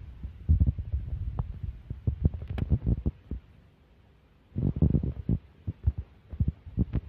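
Irregular low thumps and knocks, coming in quick uneven clusters, with a pause of about a second in the middle.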